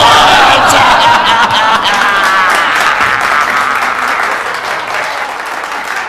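Theatre audience applauding, the clapping loud at first and dying away gradually, just after a man's shouted line ends.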